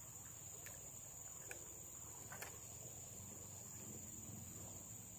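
Faint, steady high-pitched shrilling of insects, with a few soft ticks.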